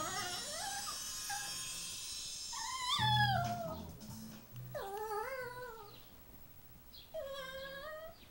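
Chihuahua giving a string of high-pitched, drawn-out yowling whines that waver up and down in pitch, four calls in all, in protest at being held on its back and teased.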